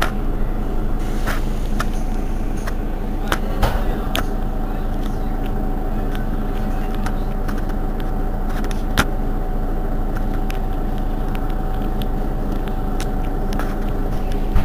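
Mercedes-Benz Citaro city bus's rear engine idling steadily while the bus stands still, with a steady whine over it. A few sharp clicks sound over the idle, the sharpest about nine seconds in.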